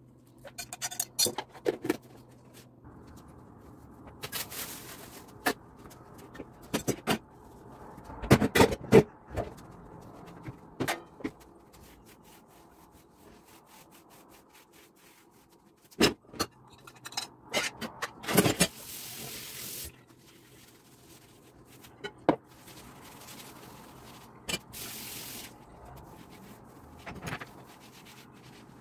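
Kitchen clean-up at a wooden table: leftover khinkali filling scraped off a plate into a plastic tub, scattered knocks and clatter of dishes, and the tabletop being rubbed and wiped by hand.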